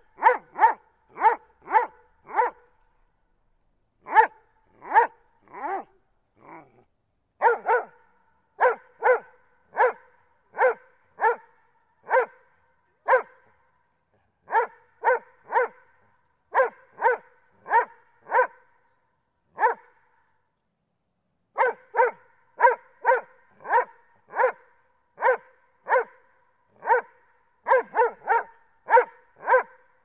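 A dog barking repeatedly in runs of several sharp barks, about two a second, with short pauses between runs and clean silence between barks.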